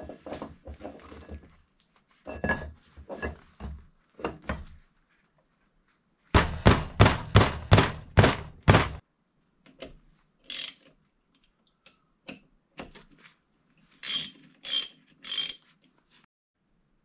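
A mallet striking a differential carrier to drive a heat-expanded carrier bearing onto it: scattered knocks, then a run of about eight hard blows, roughly three a second. Near the end come three sharper, ringing metal strikes.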